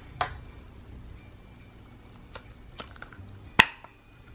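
A few short plastic clicks and taps as a Play-Doh tub is handled and the dough is worked out of it. The sharpest tap comes about three and a half seconds in.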